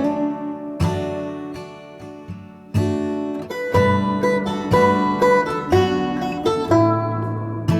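Background music on acoustic guitar, plucked and strummed chords, with a short quieter stretch about two seconds in.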